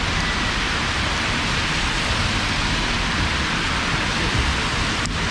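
Heavy rain falling, a steady dense hiss.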